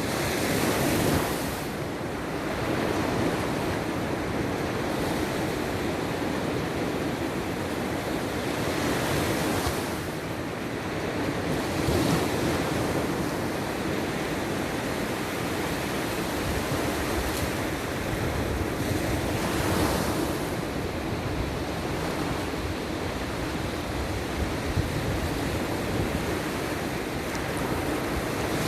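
Sea waves breaking and washing on the shore, a steady rush of surf that swells every few seconds, with some wind buffeting the microphone.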